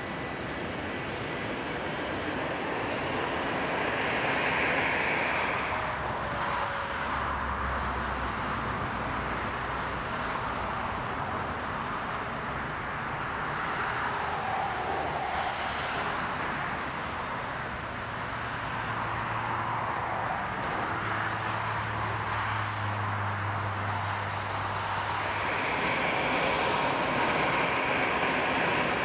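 Jet engines of a Boeing 777 wide-body twin-jet airliner on final approach and landing: a steady rushing jet noise with a low hum underneath, a little louder near the end.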